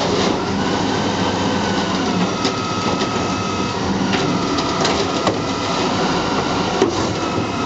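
Garbage truck running, its engine rumbling under a thin high whine that starts and stops, with a few sharp metal knocks.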